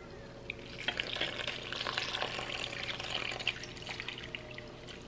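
Milk poured from a glass measuring cup into a mixing bowl of cake-batter ingredients: a steady splashing pour that starts about a second in and trails off near the end.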